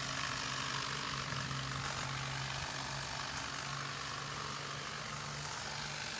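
Battery-powered hedge trimmer running steadily: an even motor hum under a dense buzzing hiss from the cutter blades.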